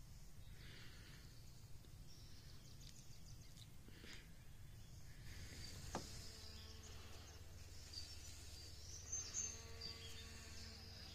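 Faint outdoor background noise: a low steady hum, a single sharp click about six seconds in, and a few faint high chirps in the second half.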